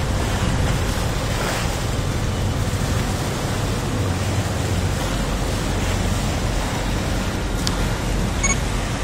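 Steady wash of sea water and wind around a small boat at sea, with some wind noise on the microphone.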